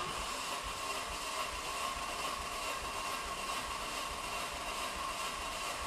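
Renault Mégane 3 RS 2.0 turbo four-cylinder turned over on its starter motor without firing, ignition cut, to build pressure for a compression test on the last cylinder. The steady starter whine with the engine's rhythmic compression pulses starts at once and stops near the end.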